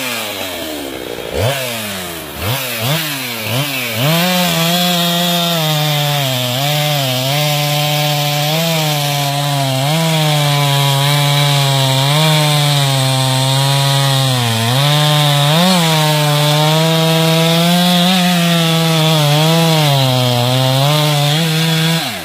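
Two-stroke gas chainsaw revved in a few quick blips, then held at full throttle while cutting through the base of a tree trunk, its engine pitch sagging and recovering as the chain bites into the wood. The engine drops back near the end.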